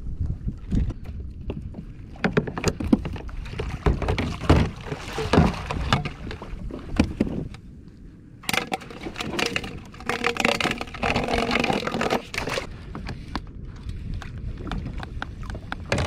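Knocks, clicks and rustling as fishing gear and a freshly caught small baitfish are handled aboard a plastic fishing kayak, with a louder rushing stretch of about four seconds past the middle.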